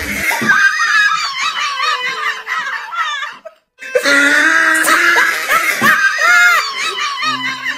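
High-pitched laughing with wavering, bending pitch, broken by a short silence about three and a half seconds in, over music whose low steady notes come back near the end.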